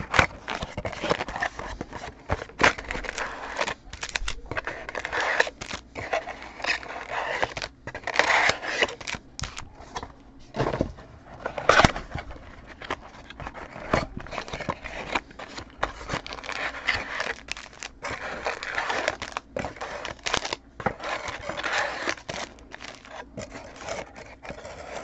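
Trading-card packaging being handled and opened: crinkling and tearing of pack wrappers and cardboard, with frequent sharp crackles and scrapes.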